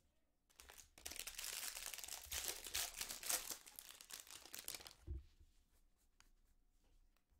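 Foil trading-card pack wrapper being torn open and crinkled, a dense crackling from about half a second in until about five seconds. After that come faint scattered clicks as the stack of cards is handled.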